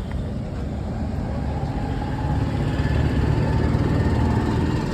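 A motor vehicle engine runs with a steady low rumble, growing louder a little after two seconds in.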